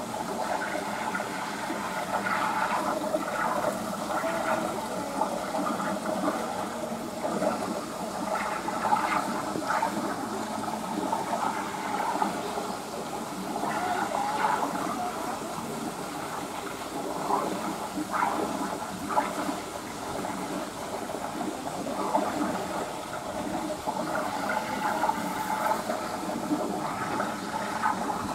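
Steady rush of running water pouring into and swirling through a shallow pool.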